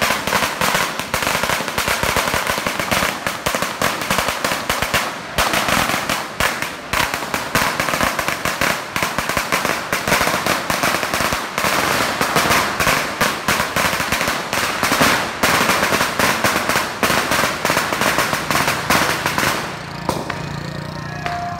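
A long string of firecrackers going off in a dense, rapid crackle of bangs, which stops abruptly near the end.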